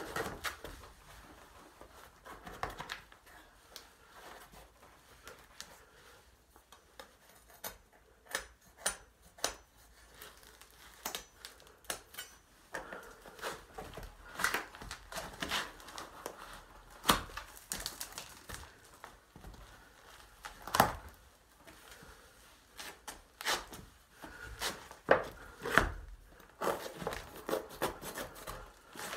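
A large kitchen knife stabbing and cutting into a canvas sneaker, with scattered knocks, scrapes and tearing; sneakers shuffle on a hard floor. The loudest knocks come about 17 and 21 seconds in.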